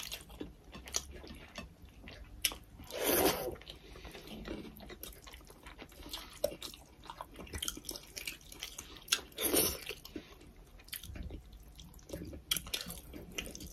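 Close-miked eating of rice and chicken curry by hand: chewing with many small wet mouth clicks and lip smacks. Two louder, longer mouth sounds come about three and nine seconds in.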